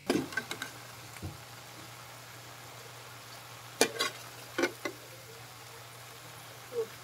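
Water spinach sizzling as it is stir-fried in a wok, a steady hiss, with a metal spatula clicking and scraping against the pan several times: a few at the start and a cluster around four to five seconds in.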